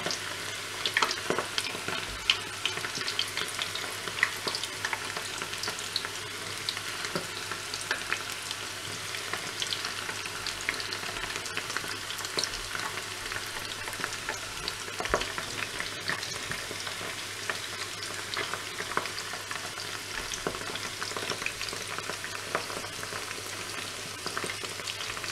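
Flour-dredged squid rings deep-frying in hot oil: a steady crackling sizzle, with frequent sharp little pops and clicks.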